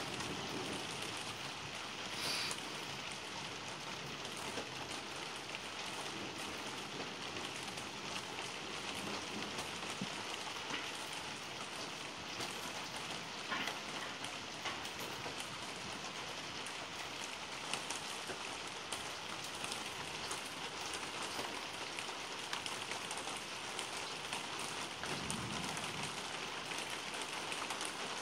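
Steady rain falling on surfaces, with scattered faint drop ticks.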